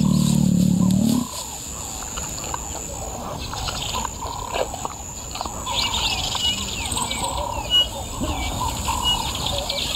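Wild birds calling in dry bushveld: short, repeated, curving whistled calls, with quick high chirps growing busier in the second half, over a steady high hiss. A louder, low, pitched sound fills about the first second and then stops.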